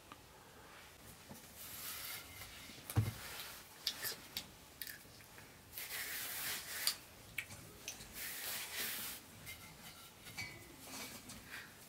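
Hands rubbing and pressing a rope of dough on a floured cloth, in several soft swishing strokes with small clicks between them. There is one dull thump about three seconds in.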